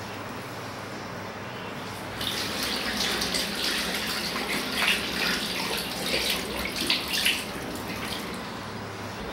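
Water running from a bathroom sink tap into the basin, with irregular splashes. It starts about two seconds in and stops about seven and a half seconds in.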